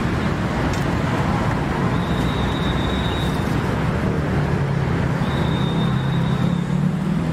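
Steady low engine hum under the general noise of an open-air market, with a faint high whine heard twice.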